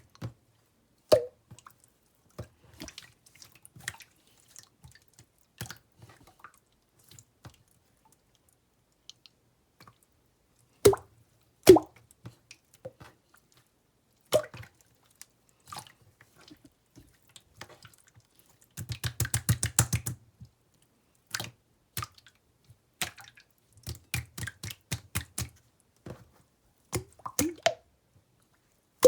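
Clear slime being squeezed and poked by hand, giving scattered wet clicks, pops and squishes, with two runs of rapid crackling clicks about two-thirds of the way through.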